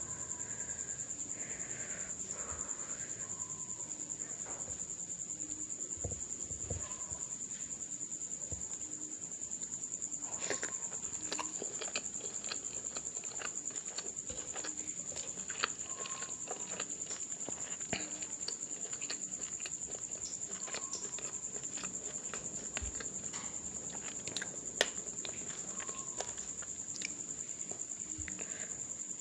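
Close-up eating sounds of someone chewing curry and cauliflower rice: many short, sharp wet mouth clicks and smacks, thickest in the second half. A steady high-pitched tone sits underneath.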